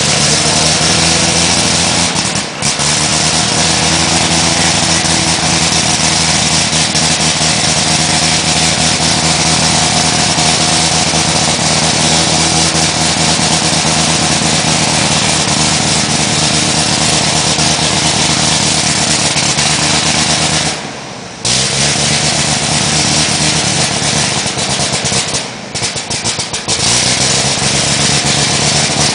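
A vintage aircraft's piston engine running steadily close to the microphone, with a hissing rush over it. It breaks off briefly about two-thirds of the way through and again near the end, each time coming back with its pitch rising as it picks up.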